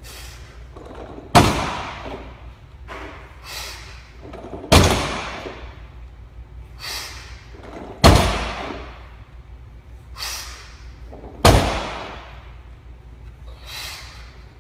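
Loaded Olympic barbell with rubber bumper plates set down hard on a wooden lifting platform, four heavy thuds about three and a half seconds apart, each trailing off in the room's echo. Softer knocks of the bar and plates come between them.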